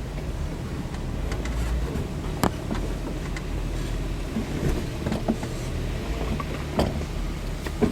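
Jeep engine running with a steady low rumble on a rough trail, with several sharp knocks and cracks over it, the clearest about two and a half seconds in and twice near the end.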